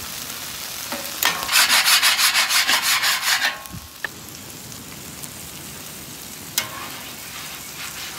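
Metal bench scraper scraping food residue off a flat-top griddle in quick, rasping strokes for a couple of seconds, followed by a steady low sizzle of hash browns frying. A small click comes about four seconds in and a sharp tap a few seconds later.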